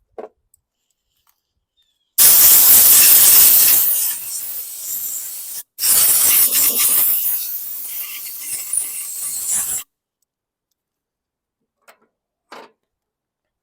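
Two long pressurised spray blasts, hissing, each about three to four seconds long and loudest at the start before tapering off, with a brief gap between them. A couple of faint knocks come before and after.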